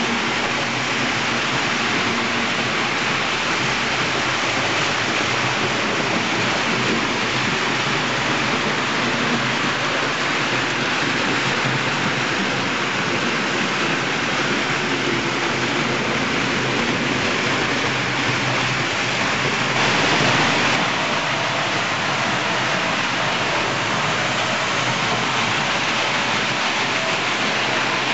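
Several model railway trains running together around the layout's track, a steady rolling noise of wheels and motors that swells slightly about twenty seconds in.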